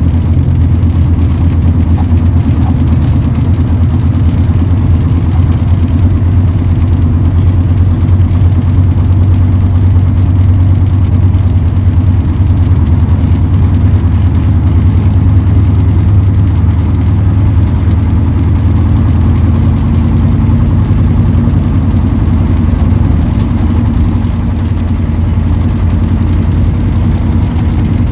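Bristol K5G double-decker bus's Gardner five-cylinder diesel engine running steadily under way, heard loud from inside the lower saloon as a deep, even drone.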